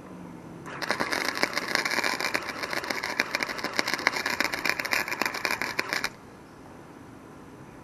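Wire-feed welder arc crackling steadily, starting about a second in and cutting off suddenly about five seconds later.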